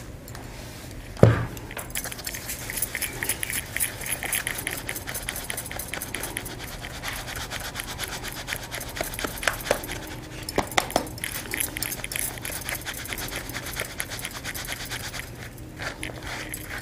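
Freshly ground rice flour being shaken and rubbed through a sieve into a plastic bowl: a rapid, continuous scratchy rustling. A single loud thump comes about a second in.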